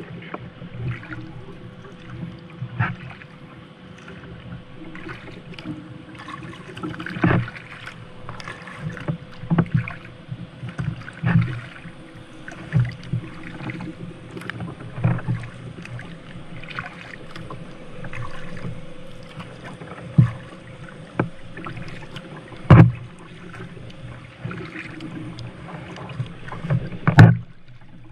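A kayak being paddled: irregular splashes of the paddle in the water, with several sharp knocks, the loudest about seven seconds in, near the middle and near the end.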